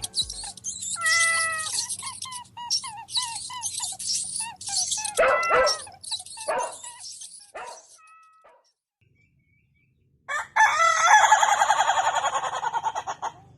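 Chickens calling over dense high-pitched bird chirping, with short calls repeating about twice a second, which breaks off into a moment of silence. Then a rooster crows once for about three seconds near the end.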